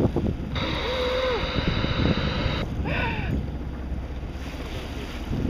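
Wind rumbling on the microphone and water rushing and splashing along the hull of a sailboat under way through choppy surf, with a loud hiss of rushing water from about half a second in that stops at around two and a half seconds.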